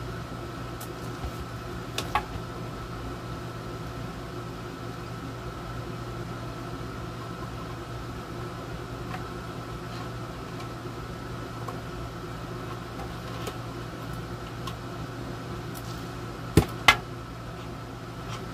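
Steady hum and faint whine of a room air conditioner running. A few light clicks come about two seconds in, and two sharp clicks close together near the end, as a replacement plug is fitted by hand onto a power cord.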